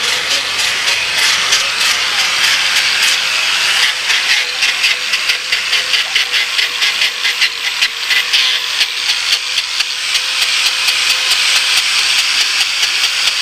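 Handheld angle grinder with an abrasive wheel sanding and shaping wood: a steady motor whine under a loud, scratchy hiss that pulses as the wheel is worked over the carved surface.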